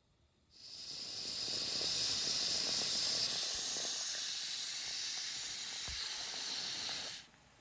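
Steam hissing out of the boiler of a Märklin 16051 toy steam engine. It is a steady hiss that starts about half a second in and cuts off suddenly near the end.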